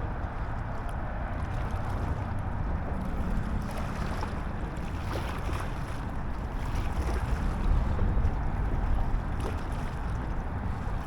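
Wind rumbling steadily on the microphone outdoors by the water, with no clear event standing out.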